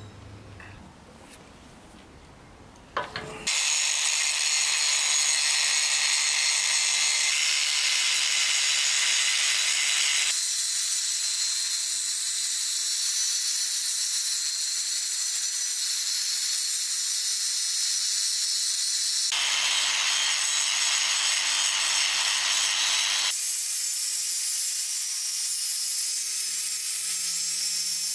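Angle grinder with an abrasive disc grinding a rusty steel pincer half clamped in a vise: a loud, steady, high grinding hiss over the motor's hum. It starts about three and a half seconds in, after a quiet moment with a couple of clicks, and shifts in tone abruptly a few times.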